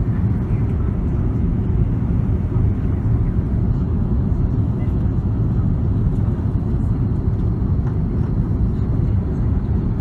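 Cabin noise of an Airbus A330-200 airliner on approach to landing: a steady low rumble of engines and airflow heard through the cabin.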